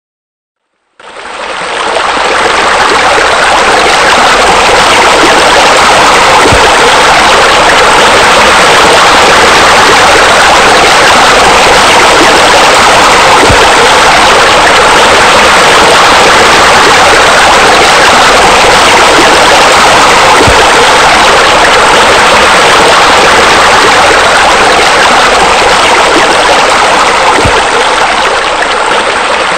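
Steady rush of water falling and splashing into a pool, like a waterfall, fading in about a second in. A faint low thump recurs about every seven seconds.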